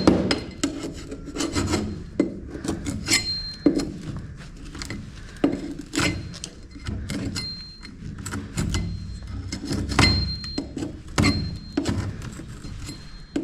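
Hand tool scraping and picking at an old, cracked wall patch: irregular scrapes and knocks as material breaks away, with a few short high squeaks.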